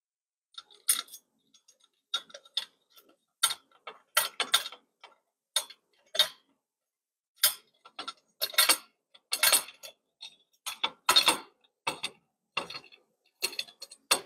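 Irregular metal clicks and light knocks as a motorcycle crash bar is held against the bike and its Allen cap bolts are started into their threads by hand.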